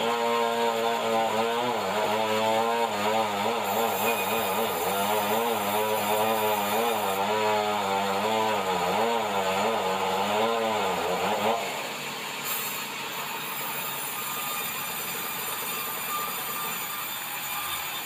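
Sawmill band saw cutting red meranti timber, its pitch wavering as the blade works through the wood. After about eleven seconds the cut ends and the level drops sharply, leaving the mill running more quietly.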